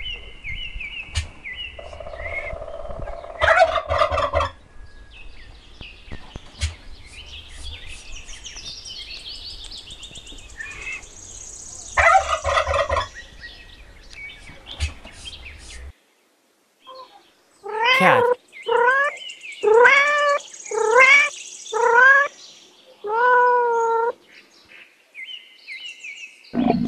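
Domestic turkeys gobbling, with high chirping calls in between. In the second half comes a run of about six drawn-out calls, each rising then falling in pitch.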